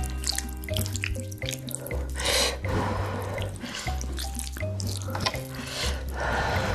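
Background music with a steady bass line, over which come several bursts of wet, rushing noise, the loudest about two seconds in.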